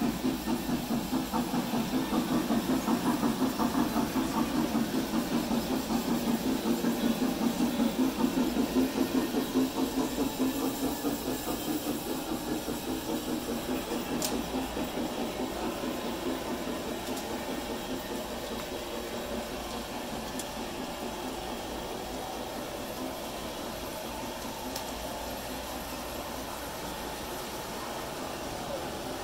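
G-scale model train running on the track close by: a motor whir with the quick, even clatter of its wheels over the rails. It is loudest for the first ten seconds or so, then eases off to a steadier, quieter run.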